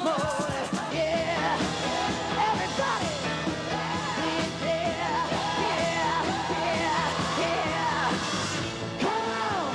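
Rock song with a lead singer, playing as a soundtrack.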